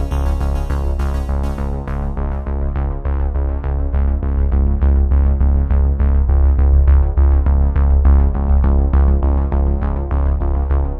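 Background music: sustained chords over a deep bass, with a steady beat.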